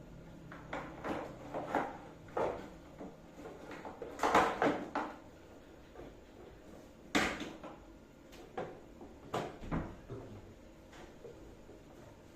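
Irregular knocks and clatter of hard objects being handled and set down, with a busier cluster about four seconds in and a single sharp knock about seven seconds in.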